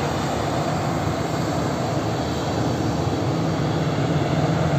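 Jet engines of a taxiing airliner, a steady low rumble, mixed with the even noise of cars passing on the expressway below. The low hum grows stronger in the second half.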